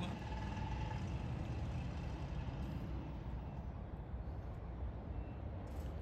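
Steady low rumble of motor vehicles and road traffic, with a faint whine that fades out in the first second or so.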